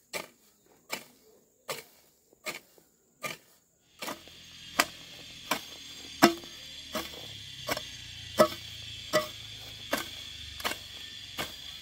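Wood being chopped with a blade: steady, evenly paced blows, about one every three-quarters of a second. A steady high hum joins in about four seconds in.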